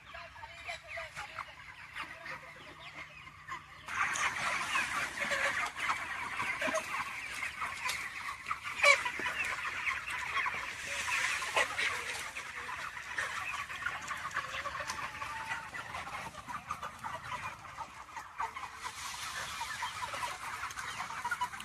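A large flock of chickens clucking and cheeping in a dense, continuous chatter, which gets louder about four seconds in. There is one sharp click about nine seconds in.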